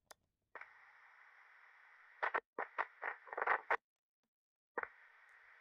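Thin, radio-like static hiss that switches on about half a second in, with a run of sharp crackles in the middle. It cuts off just before four seconds and comes back near the end.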